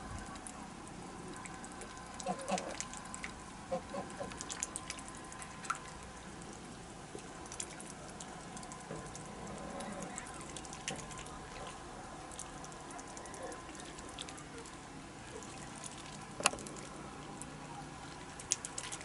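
Faint outdoor background with a low steady hum and scattered light clicks and ticks, one sharper click about sixteen and a half seconds in.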